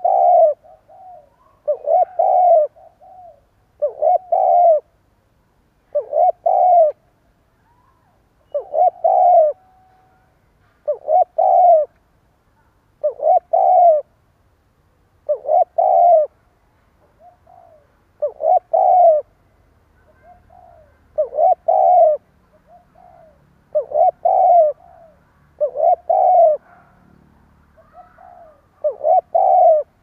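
Spotted dove giving its stuttering coo ("gù cà lăm"): a broken, repeated coo phrase with a faint lead-in note, about every two to three seconds.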